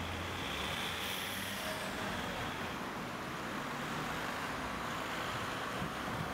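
Village street ambience: road traffic, with cars passing, over a steady background of outdoor noise.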